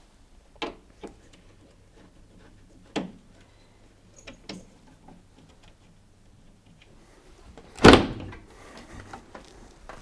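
A few small clicks and knocks as screws are undone at the back of an LG tumble dryer, then about eight seconds in a loud clatter as the dryer's top panel is slid back and lifted off.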